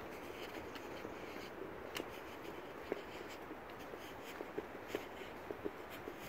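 Footsteps crunching on a dry dirt trail strewn with fallen leaves, in short, irregular crackles over a steady background hiss.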